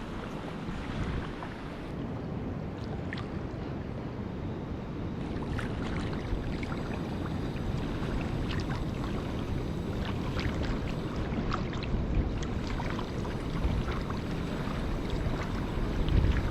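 Shallow sea water sloshing and washing, with scattered small splashes and clicks.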